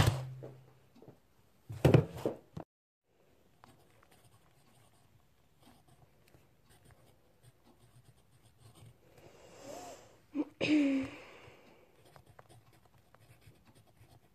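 Pencil writing on paper, faint scratching strokes on a notebook. There is a sharp knock at the start, and a short breathy vocal sound about ten and a half seconds in.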